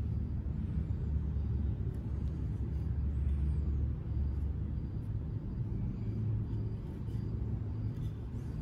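Steady low rumble in the background, a little stronger about three to four seconds in.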